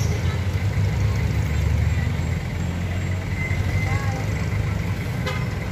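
Road traffic passing close by: a steady engine and tyre rumble from cars and a pickup going past, with faint, indistinct voices of bystanders.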